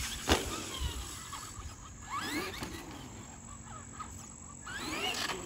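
Traxxas Bigfoot RC monster truck landing off a jump ramp with a sharp knock, then its electric motor whining up in pitch twice as it accelerates.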